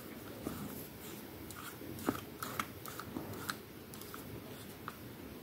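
Faint clicks and scrapes as a plastic-bodied LED candle bulb is twisted into a lamp holder, a handful of small sharp ticks spread across several seconds.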